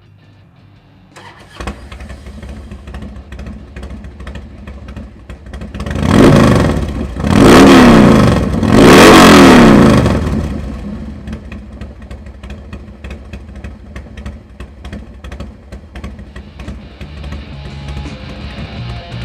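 Harley-Davidson 88 cubic inch V-twin with an aftermarket Thunder Header exhaust and open-air intake starting up about a second and a half in and settling to an idle. Around the middle it is revved three times, rising and falling each time, then it drops back to idle.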